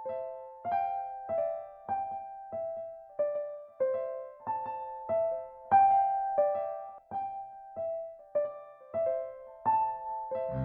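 Casio CTK-2200 keyboard playing a slow single-note melody in a piano voice, evenly paced at about one and a half notes a second, each note struck and left to fade.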